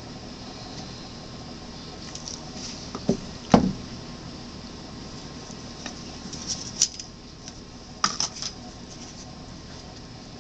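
Scattered knocks and light clicks of a wet acrylic pour canvas and paint cups being handled on a work table, the loudest a thump about three and a half seconds in, over a steady hiss.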